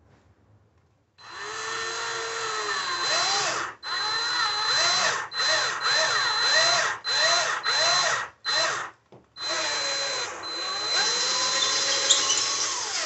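Black+Decker 20V cordless drill boring a screw hole into a wall stud, run in a series of short and long trigger pulls. Its motor whine rises and falls in pitch as the trigger is feathered and the bit loads up, with a longer run near the end.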